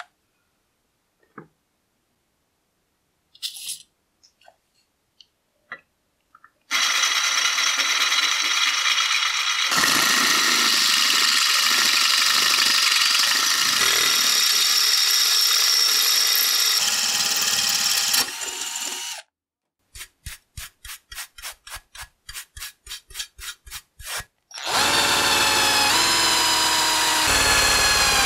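A few clicks of a plastic drill bit case being opened, then a drill boring through the iron's metal plate for about twelve seconds. After a pause come short rapid bursts, about four a second, and then a countersink bit cutting into the plate with a steady ringing chatter.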